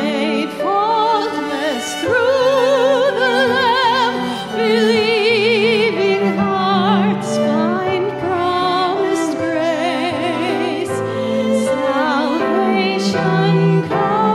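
A woman sings a slow hymn with wide vibrato, accompanied by piano and bowed cello.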